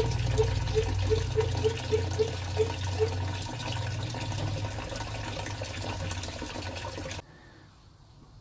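Engine coolant gushing out of a disconnected heater-circuit hose on a VW T4, with a run of short honking tones at about three a second during the first three seconds. The sound stops abruptly about seven seconds in.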